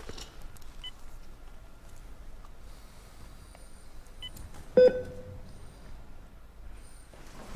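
A few faint, short electronic beeps from a bedside patient monitor. About five seconds in comes a single loud, sharp knock with a brief ringing tone.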